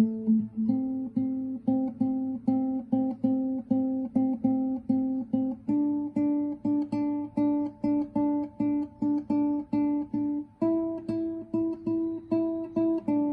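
Background music: an acoustic guitar picking a steady pattern of notes, about four a second, changing chord every few seconds.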